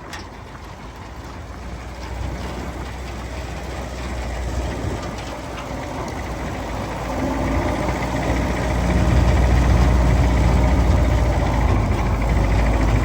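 1952 Willys M38A1 jeep's four-cylinder F-head engine running as the jeep drives, getting steadily louder and heavier, with a marked rise about two-thirds of the way through as it picks up speed.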